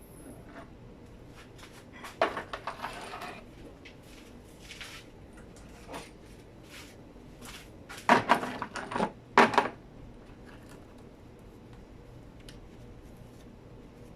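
Metal engine parts and tools clinking and clattering as they are handled, in two clusters: about two seconds in and again around eight to nine and a half seconds, with a few lighter clicks between.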